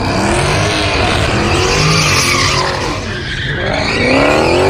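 Car doing a burnout: the engine revs up and down several times while the spinning rear tires screech.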